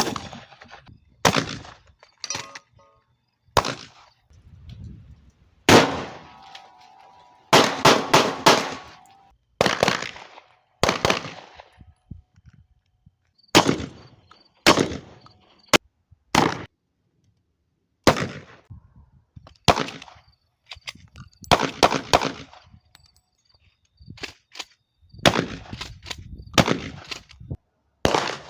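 Gunfire: a long series of sharp shots, some single and some in quick strings of three to five, each with a short ringing decay.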